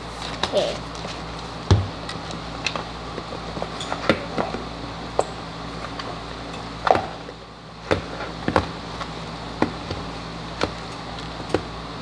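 Irregular taps, knocks and clicks of hands working raw chicken in a clear plastic bowl, with one heavier knock about two seconds in. A steady low hum runs underneath.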